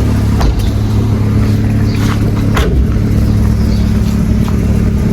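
Car engine idling steadily, with a few light clicks over it.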